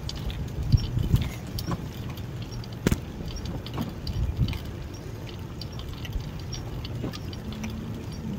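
A bicycle rolling along a concrete sidewalk, rattling and jingling with irregular sharp clicks over a low rumble from the tyres and wind. A harder knock comes about three seconds in.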